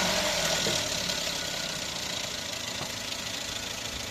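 Toyota Yaris petrol engine just after a restart, its speed easing down from the start-up flare and settling into a steady idle. A new ignition coil has been fitted for a cylinder misfire, and the engine is running smoothly.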